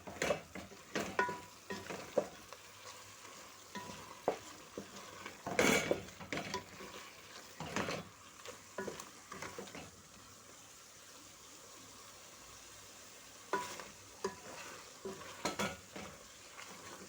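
Chicken and tomato stew sizzling in a metal cooking pot, with scattered clinks and knocks against the pot. The loudest knock comes about six seconds in.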